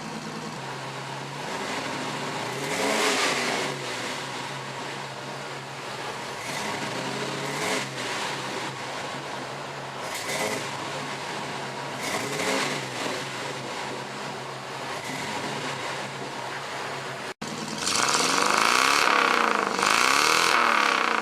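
1989 Chevy K5 Blazer's V8 idling through a HeartThrob true dual exhaust and revved briefly several times, the pitch rising and falling back each time. After a sudden break near the end, it comes back louder with two more quick revs.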